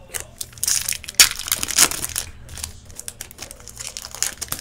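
Plastic-foil trading-card pack wrappers crinkling and being crumpled as packs are opened. The crinkling is loudest in the first two seconds, then gives way to softer rustles and ticks.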